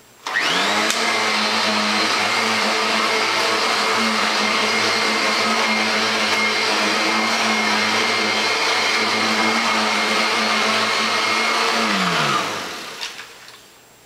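Kirby Sentria vacuum cleaner's motor, fitted with the staircase/mattress attachment, switched on and spinning up with a rising whine. It runs steadily over a mattress for about twelve seconds, then is switched off and winds down with a falling pitch near the end.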